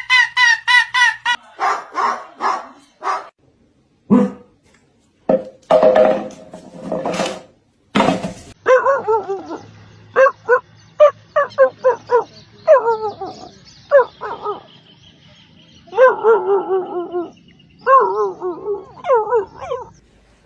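A dog barking and whining in a long series of short pitched calls, some falling and wavering in pitch.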